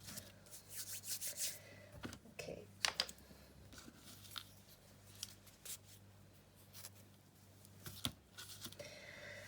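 Quiet rustling and rubbing of fabric and tulle being handled and tied, with scattered light clicks, over a faint steady electrical hum.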